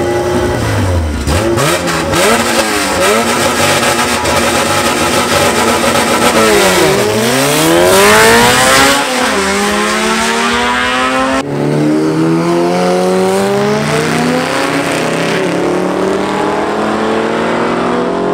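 Drag-racing cars running at full throttle, their engines repeatedly climbing in pitch and dropping back at gear changes. More than one engine can be heard at once, loudest about eight seconds in.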